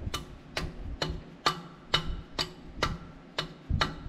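Ratchet wrench clicking in short, even strokes, about two clicks a second, as it turns out a turbocharger mounting bolt.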